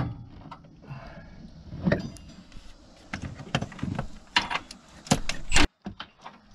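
Metal clinks and knocks of a wrench working a bolt in a car's engine bay, with a few sharper clanks about four to five and a half seconds in.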